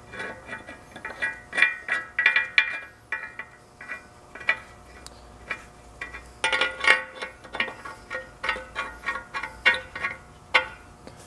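Bolts being started by hand into the metal end housing of an antique Allis-Chalmers electric motor: irregular metallic clinks and taps, each with a brief ringing tone, coming in clusters with short pauses between them.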